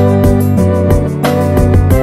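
Instrumental background music: held notes with chord changes every half second or so, and a few sharp note attacks.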